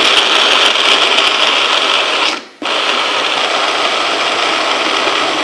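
Blender motor running with frozen aronia berries and Doppelkorn in the cup, briefly chopping the berries to a coarse mash. It runs in two goes, stopping for a moment about two and a half seconds in.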